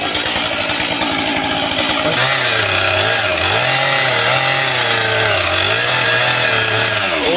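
Stihl two-stroke chainsaw running at high revs, cutting into a big tree. The engine note changes about two seconds in, then holds steady and dips briefly twice as the saw takes load.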